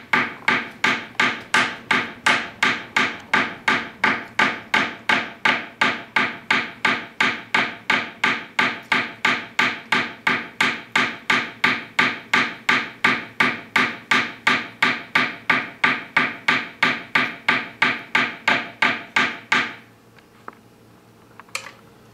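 Steady rapid hammering, about three strikes a second: a steel hammer striking wire on a polished steel bench block, cold forging the wire's hook to close it up. The strikes stop about 20 seconds in.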